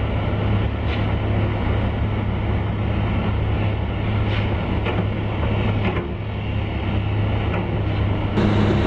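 Liebherr A 904 C Litronic excavator's diesel engine running at a steady working hum while the grab releases sand, with a few faint knocks. Near the end the sound changes abruptly to a different steady tone.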